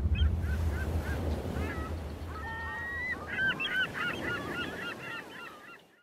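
Gulls calling: a string of short cries that bend up and down in pitch, growing denser from about three seconds in, over the low tail of fading music.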